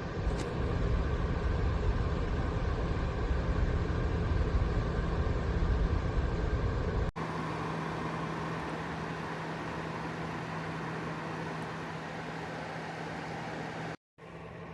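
BLACK+DECKER BHDC201 portable space heater's fan running steadily, a rushing blow of air with a constant hum. For the first half the rushing is louder and deeper; about seven seconds in it cuts abruptly to a quieter, even fan hum.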